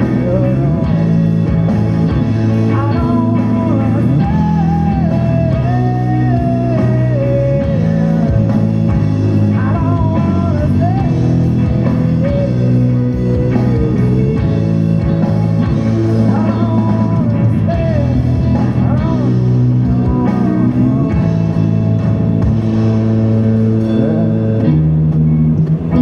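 Background rock music with guitar and a melody line that slides up and down in pitch.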